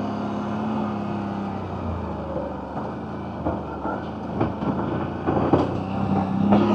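CFMoto CForce 1000 ATV's V-twin engine running at a steady cruising speed on a rough trail. Its note eases off about two seconds in and picks up again near the end. Scattered knocks and rattles come through in the second half.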